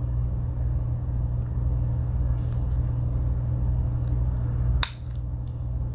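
A steady low hum, with one sharp click a little before five seconds in: a tool of a Victorinox 91 mm Swiss Army knife snapping shut against its backspring.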